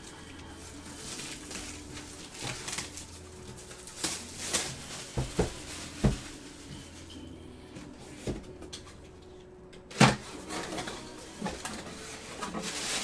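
Cardboard shoe box (a Hit Parade Autographed Kicks Edition box) being handled and opened by hand: scattered knocks and scrapes of cardboard, with one loud sharp snap about ten seconds in, then paper rustling as the lid comes open.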